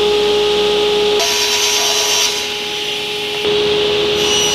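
Woodworking power tools running in a cabinet shop: a steady motor whine over loud hiss. The whine drops out about a second in and comes back about three and a half seconds in.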